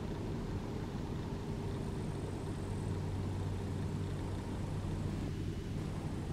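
ES2G Lastochka electric multiple unit approaching: a steady low hum over an even rumbling noise.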